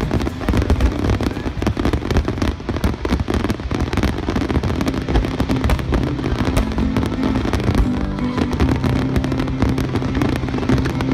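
Finale barrage of aerial firework shells: a dense, rapid run of overlapping bangs and crackles with no gaps.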